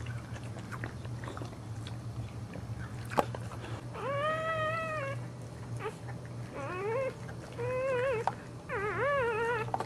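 Newborn Boxer puppy crying: four high squeals from about four seconds in, the first long and level, the later ones shorter, rising and wavering. A sharp click comes just before the first cry, over a steady low hum.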